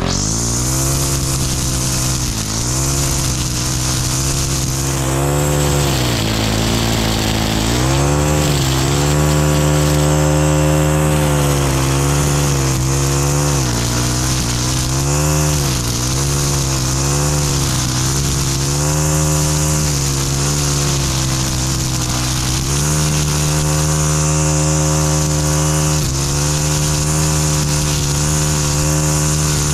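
Stihl FS 91 R string trimmer's 4-MIX engine running near full throttle as its Echo Speed-Feed 400 line head cuts thick overgrown weeds. The engine pitch dips again and again as the line bites into the heavy growth, then climbs back.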